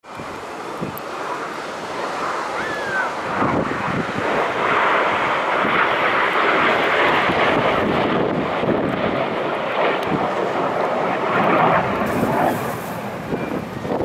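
Red Arrows' BAE Hawk T1 jets flying past in formation: a broad jet rush that builds over the first few seconds, stays loud, and eases off near the end.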